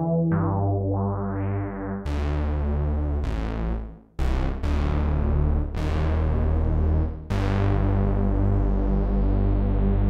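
ReFX Nexus 2 software synthesizer playing its 'SY Cyber Juno' preset, an 80s-style synth sound: sustained chords over a low held bass. Each new chord starts bright and mellows as it holds, and the sound drops out briefly just before the fourth second.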